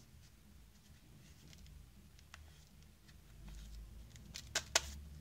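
Faint handling of the plastic parts of a Saeco Royal coffee grinder as they are fitted together by hand: light rubbing and tapping, then two sharp clicks close together near the end.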